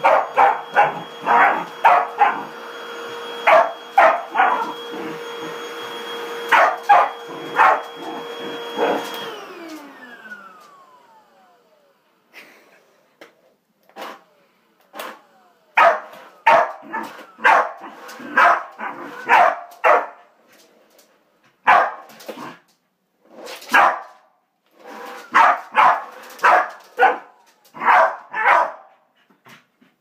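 Corgi barking repeatedly at a running stick vacuum cleaner. The vacuum's steady whine winds down and stops about a third of the way in, and the dog keeps barking in quick bursts after it has gone quiet.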